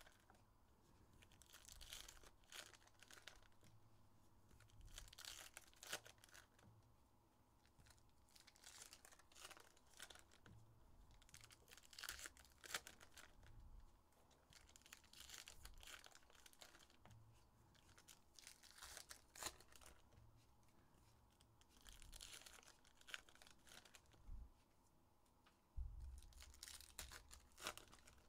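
Faint tearing and crinkling of Topps Heritage baseball card foil pack wrappers being ripped open, in repeated short bursts every second or two.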